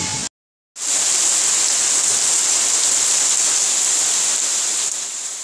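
Heavy storm rain pouring, a steady dense hiss, after a half-second dropout near the start.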